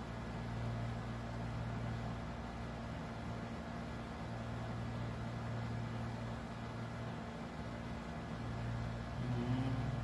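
A steady low mechanical hum with a faint hiss.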